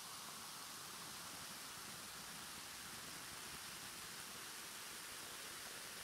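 Carbonated soda fizzing in a glass over ice cubes: a faint, steady hiss of bursting bubbles.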